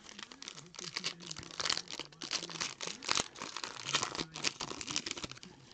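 Foil wrapper of a 2019 Limited football card pack being torn open and crinkled by hand, a dense, irregular run of crackles and rips.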